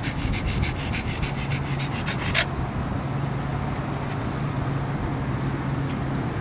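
French Bulldog snuffling and snorting with its nose to the ground, a fast run of short breaths that stops after about two and a half seconds. A steady low hum runs underneath from about a second in.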